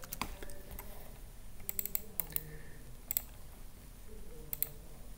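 Computer keyboard keys and clicks tapped in irregular short clusters, about a dozen sharp clicks in all.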